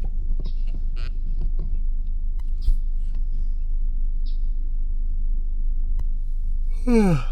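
Steady low rumble with scattered light clicks and knocks; just before the end a person's voice slides down in pitch.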